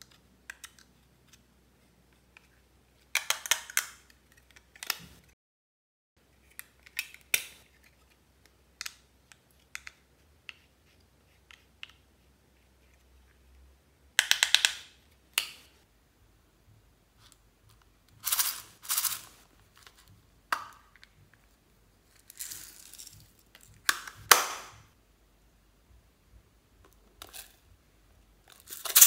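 A small metal fork scraping and picking powder eyeshadow out of a plastic compact palette. It comes as short scratchy bursts of a second or less, between small clicks and taps.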